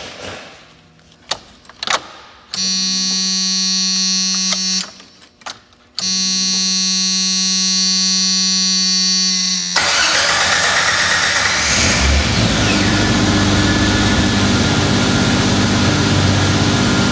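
A few clicks, then a 1991 Jeep Wrangler YJ's starter cranking the engine in two stretches, about two seconds and then about four seconds, with a steady whine. The engine catches about ten seconds in and keeps running.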